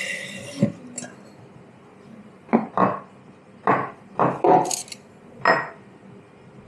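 Cups, saucers and cutlery knocking and clinking as a barista handles crockery: about nine short, irregular knocks, one ringing brighter a little past the middle.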